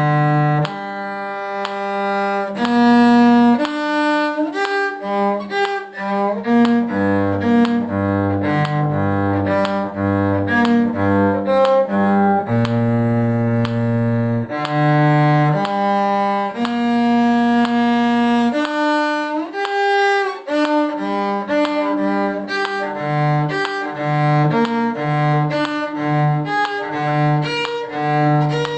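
Bowed string instruments playing a tune together in parts, a low cello-range bottom line under higher melody notes, the notes changing at a quick, even pace.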